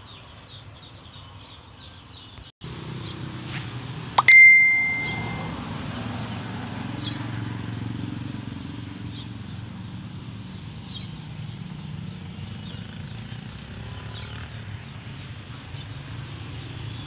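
A single sharp bell-like ding about four seconds in, ringing and fading over about a second. Behind it are a steady low rumble and faint bird chirps.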